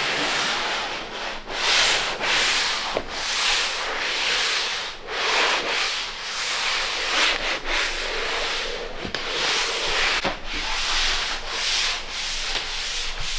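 Dried drywall joint compound being sanded in a light once-over to knock back bumps before paint: a rough scraping hiss in uneven strokes, about one a second.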